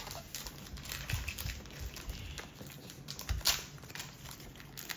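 Foil wrapper of a Pokémon booster pack crinkling, with the trading cards rustling and clicking as they are handled, in short scattered bursts.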